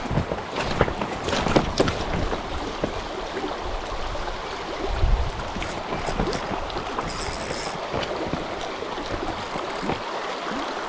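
Flowing stream water, a steady rush, with scattered small clicks and splashes.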